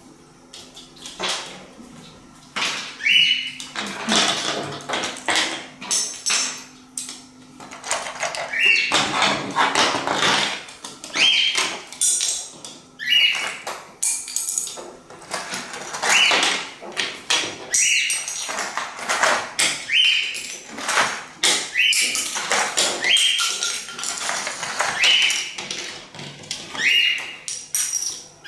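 Plastic Lego bricks clattering and tapping as a pet bird picks them up and drops them, with a short rising chirp about every two seconds.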